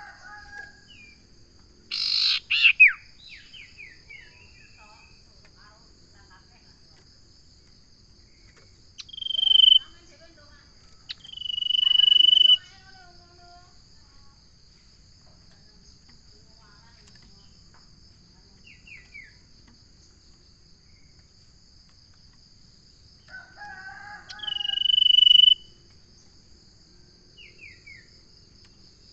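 Common iora (cipoh) calling: a burst of quick down-slurred notes, then three long drawn whistles, each swelling in loudness. A steady high insect drone runs underneath.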